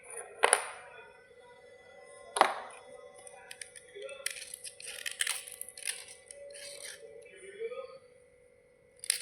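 Crunchy white slate bars cracking: two sharp cracks about half a second and two and a half seconds in, then a run of crisp crackling and crunching in the middle. A faint steady hum runs underneath.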